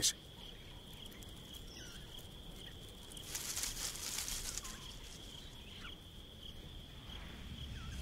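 Night-time forest ambience: a steady high insect trill, like crickets, with a few faint short falling chirps and a soft swell of noise about three seconds in.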